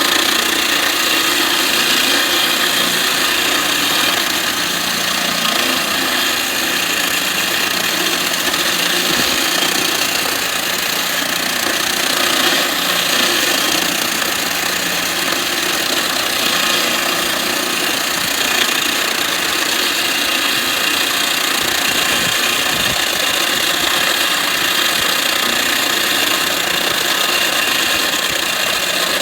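Husqvarna PG280 floor grinder running steadily, its diamond segments grinding the floor, with the Husqvarna S26 dust extractor running along with it.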